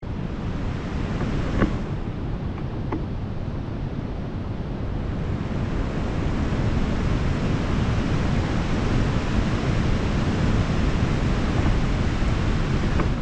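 Wind buffeting the microphone, a steady rumbling rush over the wash of a wide river, growing a little louder about halfway through. Two faint clicks in the first few seconds.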